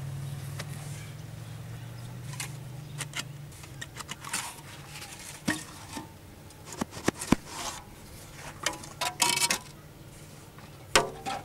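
Outdoor street ambience. A low steady hum fades out over the first few seconds, followed by scattered sharp clicks and knocks and a few short distant calls.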